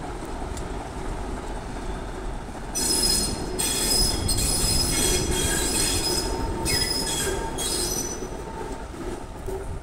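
TEM2 diesel locomotive rolling past with a low rumble. From about three seconds in its wheels squeal shrilly on the rails in three stretches over some five seconds, then fade.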